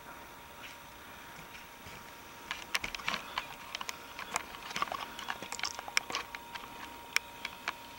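Irregular sharp clicks and crackles close to the microphone, starting about two and a half seconds in and dying away near the end, over a faint steady hum.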